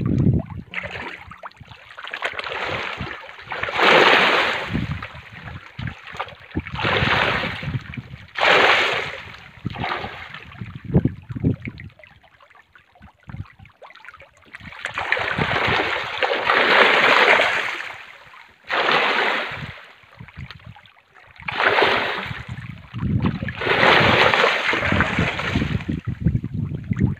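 Fish splashing and churning at the surface of a crowded fish cage, in repeated surges of splashing that rise and fall every few seconds.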